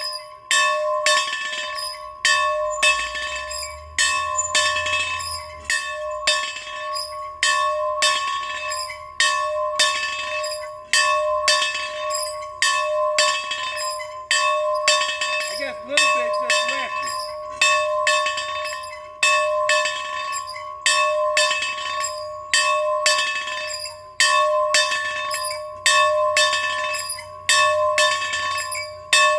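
A bell rung over and over in a steady rhythm, about one stroke a second, louder and softer strokes alternating, its tone ringing on between strokes.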